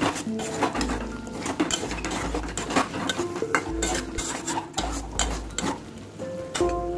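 Metal spatula scraping and clattering against a wok in irregular strokes as chicken pieces are stir-fried.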